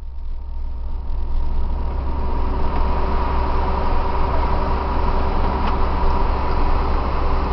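Fire truck engine and cab noise heard from inside the cab: a steady low rumble with a steady whine above it, growing louder over the first second or two.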